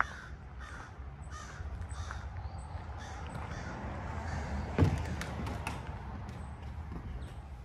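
Crows cawing in a steady series of short harsh calls, over a low rumble, with one sharp thump about five seconds in.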